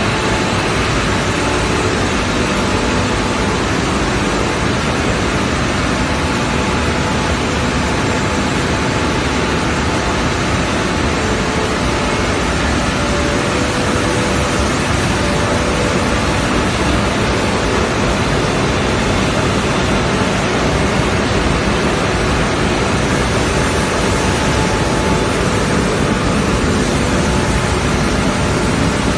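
Plastic film pelletizing line running under load, with printed PE bags fed on a conveyor into the compactor and extruder: a loud, steady, even machine noise with a faint hum.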